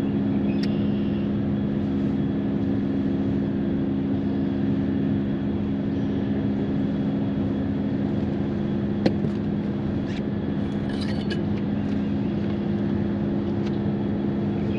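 Steady engine drone with an even, unchanging hum, with a single sharp click about nine seconds in.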